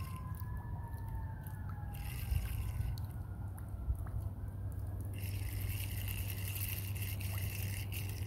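Distant emergency-vehicle sirens wailing faintly, two slow tones gliding up and then down over several seconds, against a steady low rumble. Two brief taps come a few seconds in.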